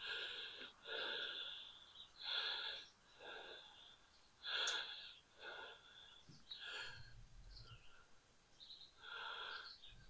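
A man's heavy breathing, quick breaths about once a second with a short pause near the end: the hard breathing of exertion after wrestling a heavy log into place.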